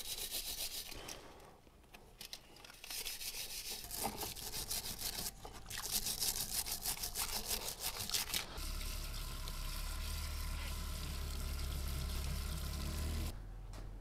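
Wire brush scrubbing a steel lead screw and gears in a tub of alkaline cleaning solution: runs of rapid back-and-forth scratchy strokes with splashes. For about the last five seconds a steady hiss with a low hum takes over.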